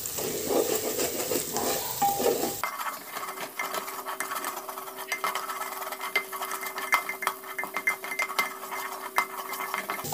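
Wooden spatula stirring and scraping onions frying in oil in an aluminium pressure cooker, with many light clicks and knocks of the spatula against the pot and a sizzle from the browning onions.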